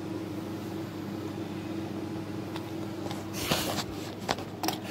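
Steady low hum of a ceiling fan's motor. A brief rustle comes about three and a half seconds in, and a couple of sharp clicks follow near the end.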